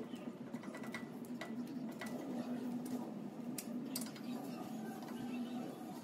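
A few sharp, irregular metal clicks of hand tools and parts at the steering knuckle and hub as a new front wheel bearing is fitted, over a steady low hum.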